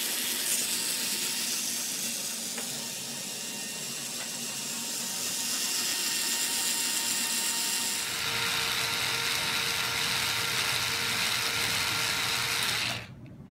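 Right-hand cone of a Sturmey-Archer C30 internal gear hub being spun down the axle thread by a rotating cone-driving tool: a steady mechanical whirring with steady tones, which shift in pitch about eight seconds in and cut off sharply near the end.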